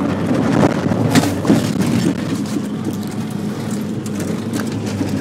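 Jeep engine running steadily as it drives, heard from inside the cabin, with road noise and a few brief knocks and rattles.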